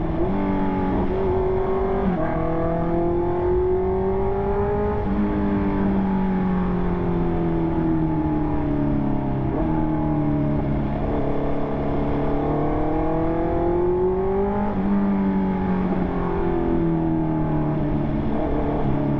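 2020 Honda CB650R's inline-four engine through an SC Project exhaust while riding, the pitch climbing and falling with the throttle and stepping down at several gear changes, with a low rush of wind and road underneath.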